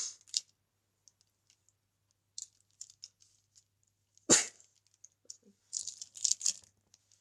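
Sharpie markers being taken out of a pencil case and put down: scattered light plastic clicks and rustling, with one louder knock about four seconds in.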